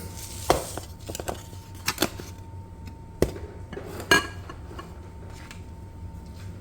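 Kitchen utensils and dishes knocking and clinking, about five separate knocks, the loudest one near the middle with a short ring.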